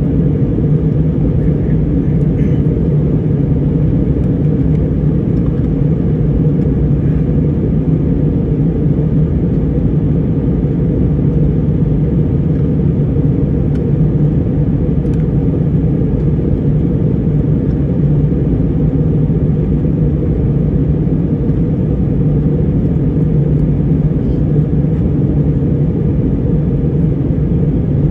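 Steady, deep drone of engine and airflow noise inside a jet airliner's cabin, heard from a window seat during the approach to landing.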